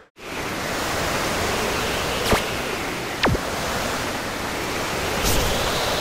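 Storm-wind sound effect: a loud, steady rush of gale-force wind that starts just after a moment of silence. It is broken by three brief, sharp swishes about two, three and five seconds in, one of them falling fast in pitch.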